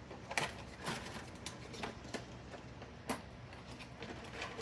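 Scattered light clicks and taps, about half a dozen, from a CPU heatsink and fan being handled, over a faint steady low hum.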